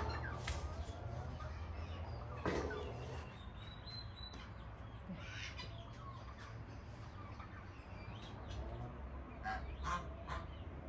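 Farmyard waterfowl, geese or ducks, honking and calling a few times, with a cluster of short calls near the end.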